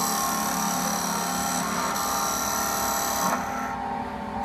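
Automatic wood-bead lathe running: the spindle whines steadily while a drill bit bores into the end of a spinning wooden dowel, giving a shrill cutting hiss. The cutting noise drops away for about a second near the end, leaving the machine's hum.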